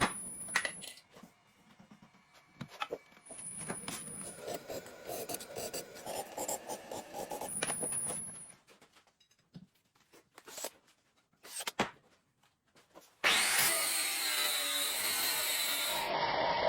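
Workshop tool work on the knife: irregular rubbing and scraping with sharp clicks for about eight seconds, a few quiet seconds with scattered knocks, then a steady loud power tool starts about thirteen seconds in and keeps running with a faint high whine.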